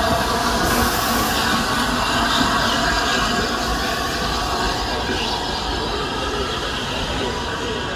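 The Flying Scotsman, an LNER A3 4-6-2 Pacific steam locomotive, reversing slowly away along the track, its running sound on the rails steady and getting gradually quieter as it moves off.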